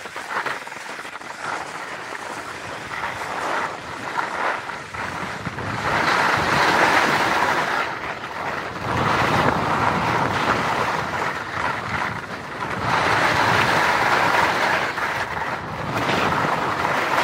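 HEAD alpine skis hissing and scraping over packed snow as the skier runs downhill, mixed with wind rushing over the helmet-mounted microphone. The hiss swells and eases about four times, as with successive turns.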